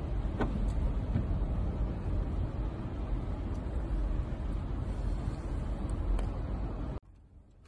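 Steady engine and road noise of a moving car heard from inside the cabin, with a few faint clicks. It cuts off abruptly near the end.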